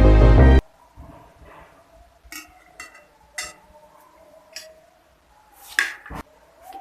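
Background music cuts off about half a second in, followed by a few scattered light clinks and taps, like glass and dishes being handled and set down on a table.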